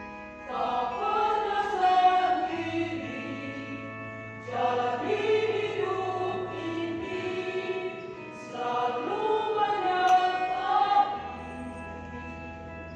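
Church choir singing three phrases of a few seconds each over steady held keyboard chords.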